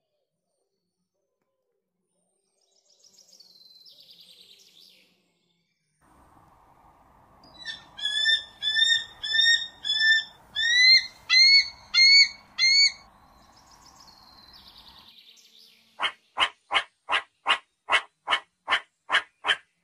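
Animal calls: a run of about a dozen rising, chirp-like calls, roughly two a second, over a low hiss, then, near the end, a fast even series of short sharp pulsed calls, about three or four a second.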